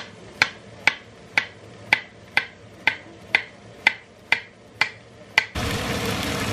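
Kitchen knife slicing a cucumber on a chopping board: a dozen even, sharp chops, about two a second, each the blade knocking on the board. Near the end the chopping gives way to a steady hiss from a pan of potatoes coming to the boil on the hob.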